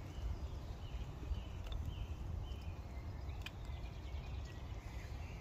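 Low steady rumble of a wood-fired storm kettle burning hard, flame rising out of its chimney as the water heats toward the boil, with a few small crackles. Faint bird chirps sound over it.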